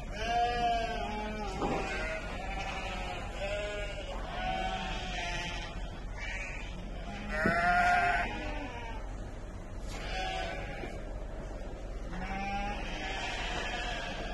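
A flock of Île de France sheep bleating, many separate calls one after another and now and then overlapping, the loudest a little past the middle.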